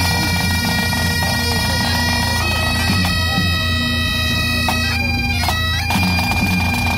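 Great Highland bagpipes playing a tune: steady drones sound throughout under the chanter melody, which moves from note to note.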